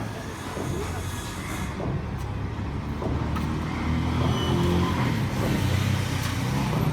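A large motor vehicle's engine running with a low rumble, growing louder about three seconds in, over a general traffic hum.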